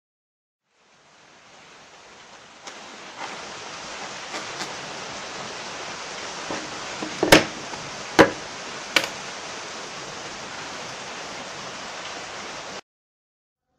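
Steady hiss with three sharp wooden knocks about a second apart near the middle, as pieces of wood are set down on a wooden saw table.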